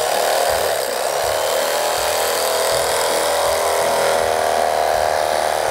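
Cuisinart CEK-30J electric knife running steadily, its reciprocating serrated blades cutting down through two stacked sandwiches of bread, ham, cheese and lettuce.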